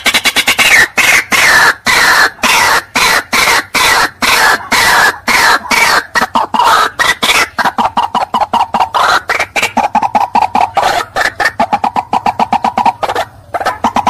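White-breasted waterhen (ruak-ruak) calling: a rapid, unbroken run of repeated croaking notes, several a second, that settle lower in pitch after the first few seconds and break off briefly near the end.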